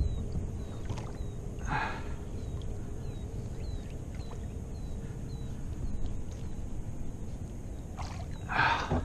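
Kayak paddle strokes in lake water: two splashing strokes, one about two seconds in and a louder one near the end, over a steady low rumble.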